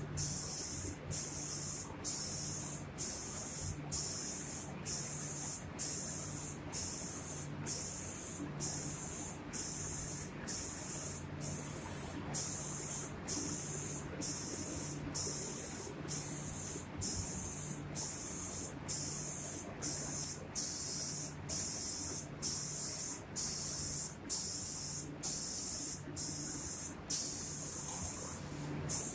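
Automatic reciprocating spray gun on a cabinet-door painting machine, hissing as it sprays paint. The hiss cuts off briefly about once a second as the gun switches at each pass, over a faint low motor hum.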